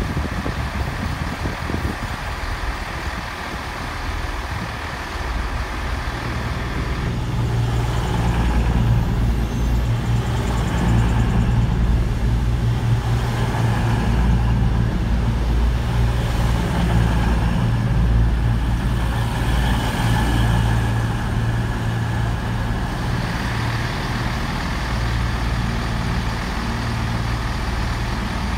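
Avanti West Coast Class 221 Super Voyager diesel multiple unit pulling into the platform, its underfloor diesel engines setting up a steady low drone that comes in about six or seven seconds in and holds to the end.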